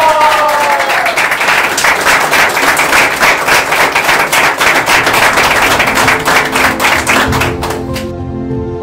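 Applause, with a whooping cheer at the start. Music comes in about six seconds in, and the clapping dies away near the end.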